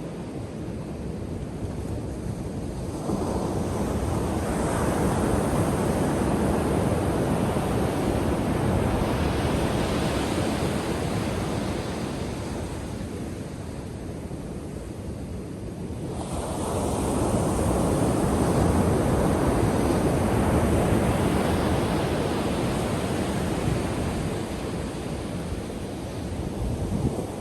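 Ocean waves breaking on a beach: a rush of surf swells up about three seconds in and slowly washes back, and a second wave breaks about two-thirds of the way through and fades the same way.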